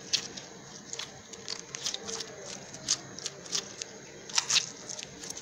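Crunchy slime being worked by hand, giving irregular crackling clicks and pops, with a cluster of louder pops about four and a half seconds in.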